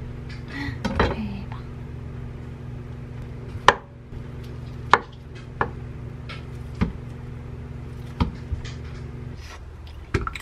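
Kitchen knife cutting through steamed kabocha squash and knocking on a wooden cutting board, with a sharp knock every second or so. A steady low hum in the background stops shortly before the end.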